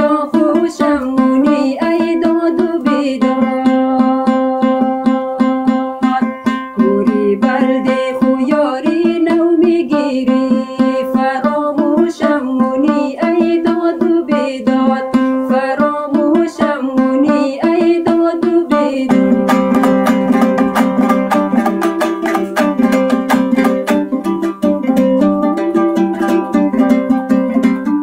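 Hazaragi folk song: a dambura, the two-stringed Afghan lute, is strummed and plucked under a woman's singing. About 19 seconds in, the dambura switches to fast, dense strumming.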